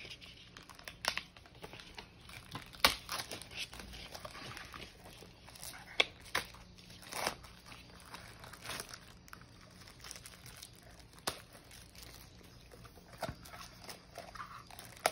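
Clear plastic organizer box being unwrapped and handled: its plastic bag and film crinkle and rustle, with scattered sharp clicks and taps of the plastic, the loudest about three and six seconds in.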